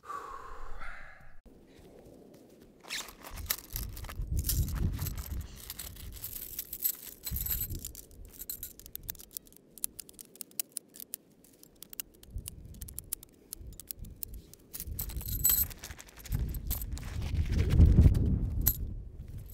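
Lightweight aluminium camp-cot poles clicking, clinking and scraping as the sections are handled and fitted together, with dull low bumps of handling, the heaviest about 18 seconds in. A short sigh-like vocal sound at the very start.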